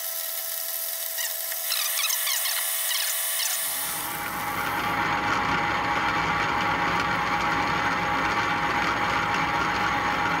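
Atlas 618 lathe running steadily while a high-speed steel form tool cuts an Acme thread into a water-hardening steel tap blank, with a few short high squeaks in the first few seconds.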